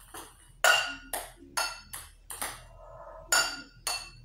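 Small balls bouncing on a hard tiled floor: about seven sharp pinging taps at uneven intervals, each ringing briefly.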